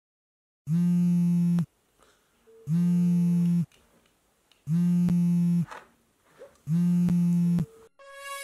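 Smartphone vibrating on a table for an incoming call: four steady, low buzzes about a second long, two seconds apart.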